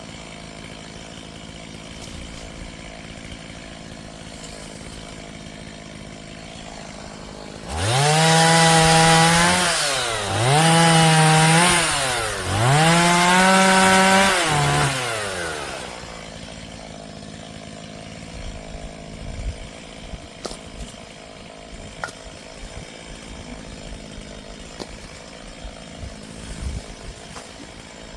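Gas chainsaw idling low, then revved to full throttle three times in quick succession about eight seconds in. Each burst lasts about two seconds, its pitch rising fast, holding and dropping back. It then settles back to a low idle with scattered small cracks.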